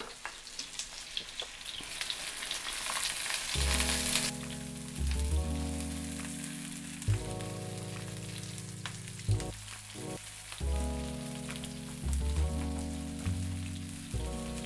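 Strip loin steak searing in hot oil in a nonstick pan: a steady sizzle with crackles and pops, loudest in the first four seconds. From about four seconds in, background music with low sustained notes plays over the fainter sizzle.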